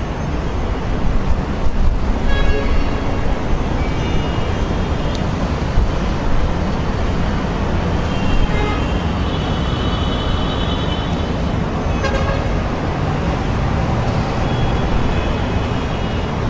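Car horns honking several times over a steady, heavy low rumble of street traffic.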